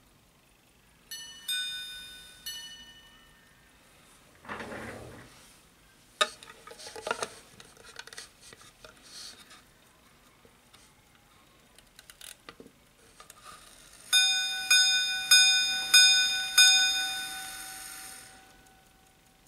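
A minute-repeater pocket watch striking its gongs: three quiet ringing strikes about a second in, then rustling and clicks as the watch is handled and set into a wooden sounding board, then a louder run of about five ringing strikes near the end, amplified by the sounding board and fading out.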